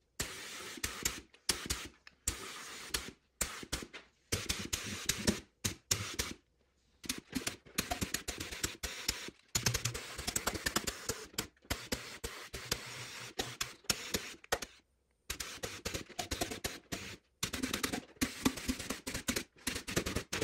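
Compressed-air paint spray gun hissing as it sprays 2K high-build primer, in many short bursts that start and stop abruptly.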